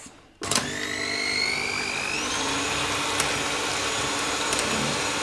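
Krups electric hand mixer switched on about half a second in, its motor whine rising in pitch as it spins up to top speed, then running steadily as the beaters whip a cream-and-sugar mixture in a stainless steel bowl.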